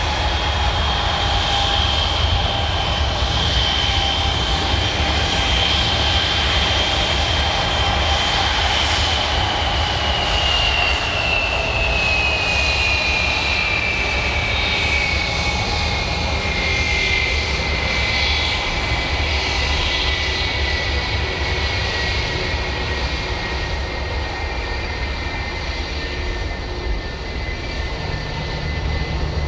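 Airbus A320-232's twin IAE V2500 turbofan engines at takeoff thrust: a steady rumble with a high whine that holds, then falls steadily in pitch from about ten seconds in.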